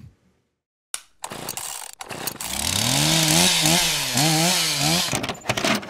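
Chainsaw revving: after a moment of silence the engine comes in, its note climbs and then wavers up and down while running loud, and dies down near the end.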